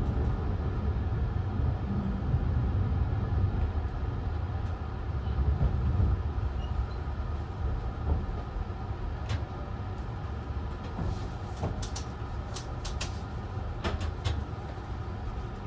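Low, steady rumble of a Thunderbird limited express train heard from inside the passenger car as it runs slowly along the platform, fading gradually as it slows, with a few sharp clicks in the second half.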